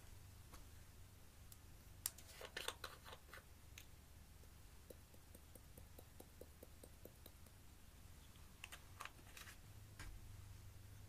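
Faint clicks of small plastic makeup pots being handled over a glass dish, with a run of light, even taps, about five a second, as a pot of dark glitter is tipped and shaken out.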